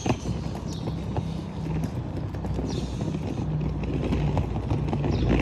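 Footsteps on a paved street as the person filming walks along, a string of light irregular knocks over a low steady hum.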